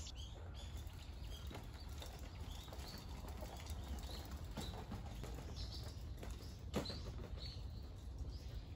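Faint outdoor ambience: small birds chirping now and then over a steady low rumble, with a single sharp knock about seven seconds in.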